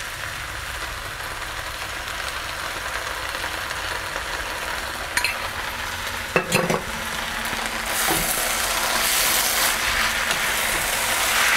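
Pork chow mein frying in a wok, a steady sizzle as the sauce is poured over the noodles and vegetables. A few light knocks come about halfway, and from about eight seconds in a wooden spoon stirs the noodles and the sizzle grows louder.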